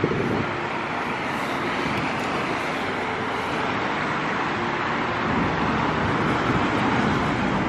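Steady noise of road traffic in a city.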